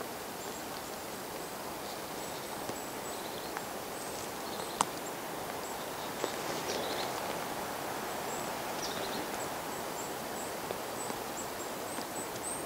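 Quiet forest ambience: a steady rustle of a light breeze in the trees, with faint high-pitched chirps repeating throughout and a single sharp click about five seconds in.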